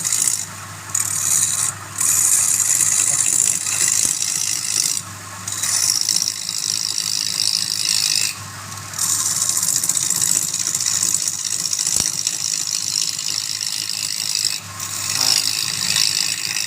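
Wood lathe running with a steady motor hum while a turning tool cuts the spinning wood in a loud hiss of shaving. The cutting sound breaks off briefly about four times as the tool is lifted from the work.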